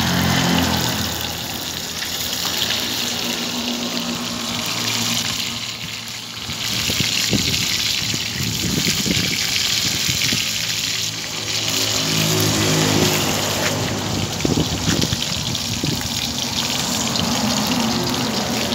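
Pieces of channel scabbard fish deep-frying in hot oil in a steel wok: a steady sizzle of bubbling oil.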